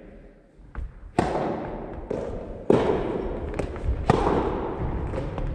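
Soft tennis rally: the soft rubber ball is struck by rackets and bounces on the wooden floor, sharp pops about every second and a half with smaller knocks between, each ringing on in the hall's echo.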